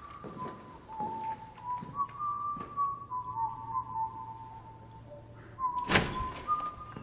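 A person whistling a slow tune, with soft knocks of footsteps. A single loud thud comes about six seconds in.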